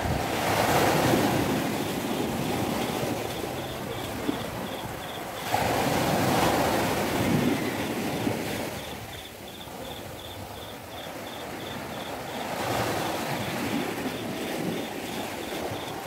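Small waves washing up onto a sandy beach and drawing back, in three swells about six seconds apart.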